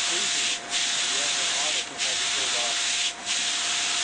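Pressurised backwash spray jets of a rotary drum filter hissing steadily against the turning mesh screens; the hiss dips briefly about three times, at even spacing.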